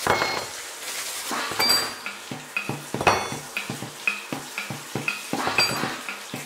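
Kitchen work sounds edited into a quick rhythm. Water rushes from a faucet into a stainless steel sink in short bursts, and dishes and utensils clink and knock about four times a second.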